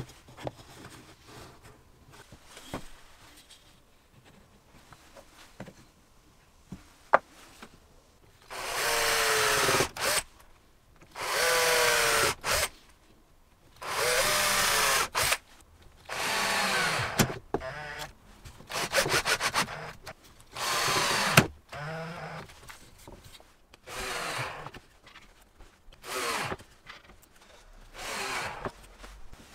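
Cordless drill-driver driving wood screws into pine blocks, in about ten short bursts of one to two seconds, the motor's pitch dropping in some bursts as the screw pulls in. Before the first burst there is only light handling of the wood.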